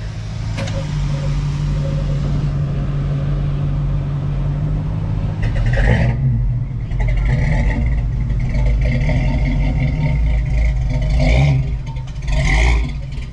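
A car engine running with a steady low rumble; a higher, uneven noise joins about halfway through.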